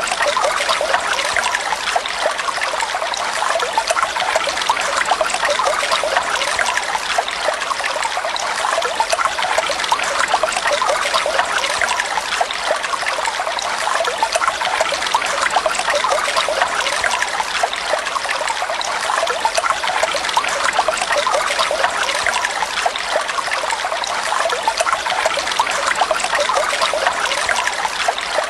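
Water flowing and trickling steadily, a continuous splashing rush with fine bubbling detail and no pauses.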